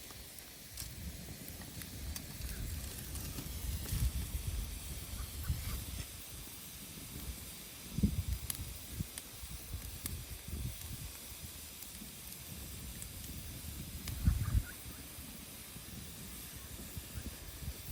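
Wood fire burning with a steady hiss and scattered faint crackles. Low rumbling runs underneath, with two louder low thumps about 8 and 14 seconds in.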